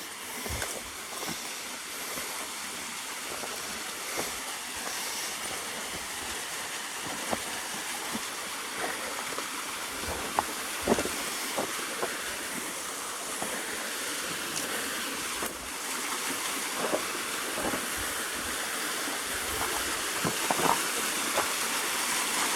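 Steady rushing hiss of a small cascading waterfall and its stream, carrying only a light flow, growing slightly louder over the stretch. Scattered short knocks and clicks of footsteps over rock and brush sound through it.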